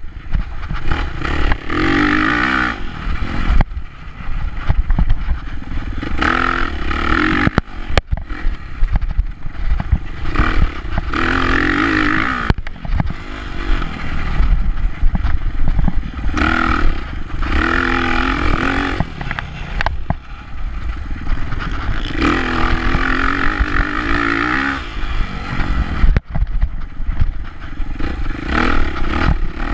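Dirt bike engine heard from the bike itself as it races over a dirt track, revving hard and backing off every few seconds through the corners, over a steady low rumble. A few brief knocks or dropouts break in along the way.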